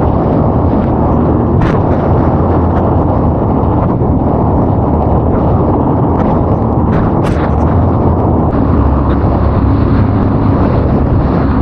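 Jet ski running at speed over ocean swells, its engine rumble mixed with heavy wind buffeting on the microphone, with a couple of short sharp hits, likely from water spray.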